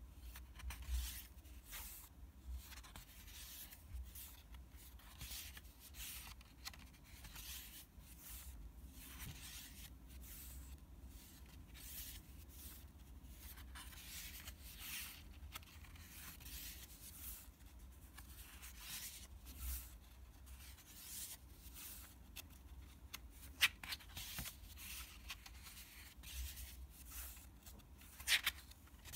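Faint rustling and rubbing of sketchbook paper as the pages are handled and turned, with a sharp tap about four-fifths of the way in and a couple more near the end.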